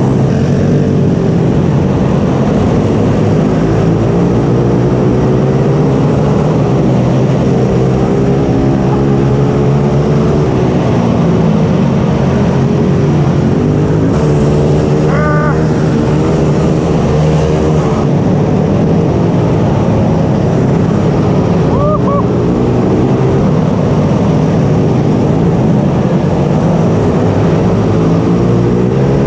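Racing mini bike's small engine running hard under load, its pitch rising and falling again and again as the rider accelerates and backs off through the corners. Twice a brief higher whine, another engine, rises and falls over it, about halfway through and again later.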